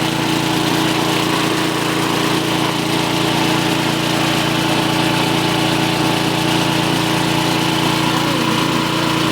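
Small diesel engine of a forage chopper (chaff cutter) running steadily at an even speed.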